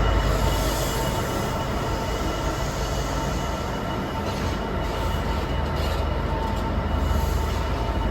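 A train running on the rails: a steady rumble with several steady high-pitched tones over it.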